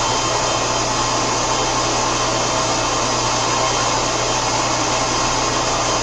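Lagunamatic 3516 vertical machining centre running a program in auto: a steady whir of machine and spindle noise with a constant low hum.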